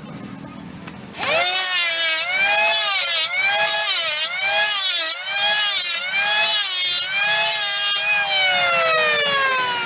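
Corded electric hand planer starts about a second in and runs with a high whine. The pitch dips and recovers roughly once a second as the cutter head bites into the wooden board on each pass. About 8 s in the trigger is released and the motor spins down with a steadily falling whine.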